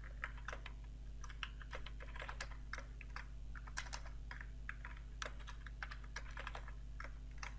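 Computer keyboard being typed on: a faint, uneven run of key clicks.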